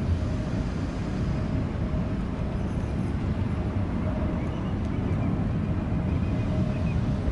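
Steady low rumble of two jet airliners' engines on final approach, heard from a distance.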